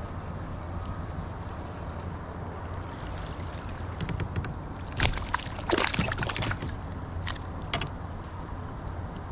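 Fishing kayak moving on the water, with a steady low rumble. About five seconds in there is a burst of sharp clatter and splashing lasting a second or two, followed by a couple of lone ticks.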